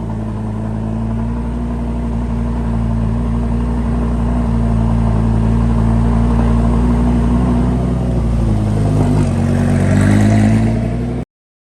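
Lamborghini Gallardo LP560's V10 engine idling through a Larini aftermarket exhaust, steady, with the pitch dipping and coming back up briefly near the end. The sound cuts off abruptly just before the end.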